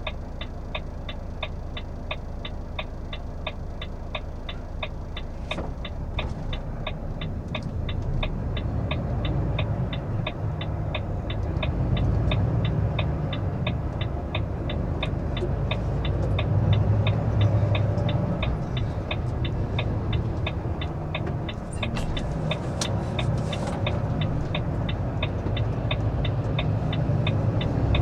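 Lorry cab interior: the diesel engine runs and pulls away, growing louder from about six seconds in as the truck gathers speed onto the road. Throughout most of it the turn-signal relay ticks at about three to four ticks a second, then stops near the end.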